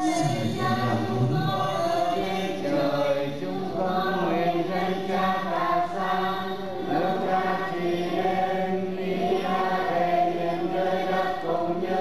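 A congregation chanting a Catholic devotional hymn together in Vietnamese, a sung melody of many voices with held notes.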